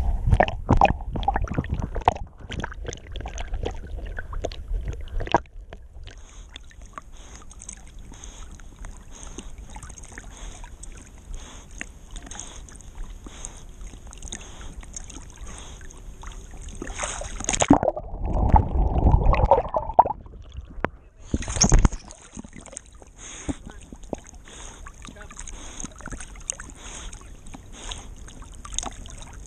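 Water sloshing and splashing close around a camera strapped to a swimming dog's back, with a dense patter of small splashes as he paddles. About two-thirds of the way in there is a louder, duller rush lasting two seconds, then a short burst of the same a moment later.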